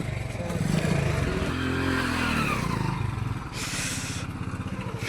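Motorcycle engine running, its pitch rising and falling about two seconds in as it is revved, with a brief hiss near the end.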